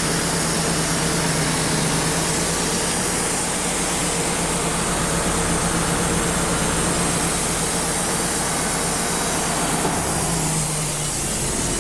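Wood-Mizer LT35 portable sawmill running, its engine and the dust blower going steadily together; near the end the steady hum shifts to a higher one.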